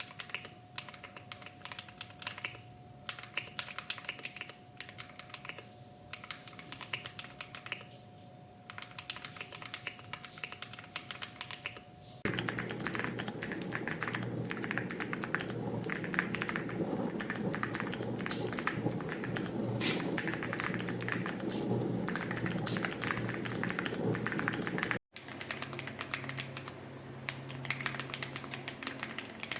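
Fast typing on mechanical keyboards, a dense run of key clicks. About 12 s in, the sound switches abruptly to a different board with a louder, deeper clack, and there is a brief dropout about 25 s in before typing resumes. A faint steady hum lies under the first part.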